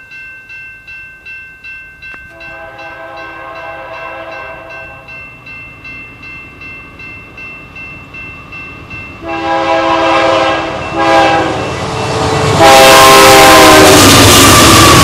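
Grade-crossing bell dinging about twice a second, then a BNSF C44-9W diesel locomotive's multi-chime air horn sounding the crossing signal: long, long, short, long, louder with each blast. Near the end the locomotive reaches the crossing and its engine and wheel noise swells loudly under the final long blast.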